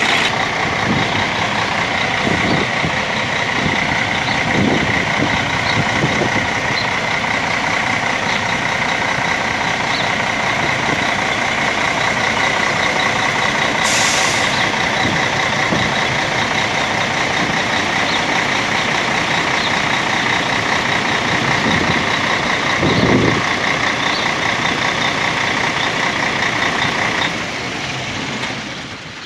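Mercedes-Benz coach diesel engine running, with a steady high whine over it. A short burst of air hiss comes about halfway through, and the sound drops away sharply near the end.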